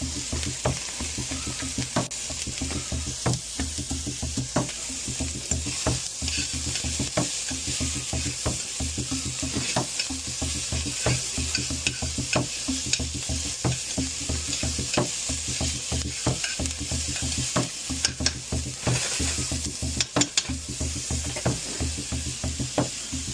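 Diced yellow onions sizzling in hot olive oil in a pan, with a utensil clicking and scraping against the pan at irregular moments as they are stirred.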